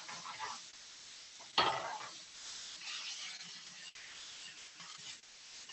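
Tofu and bitter melon stir-frying in a hot oiled skillet: a steady sizzle, with a spatula scraping and stirring in the pan. One louder clatter about one and a half seconds in.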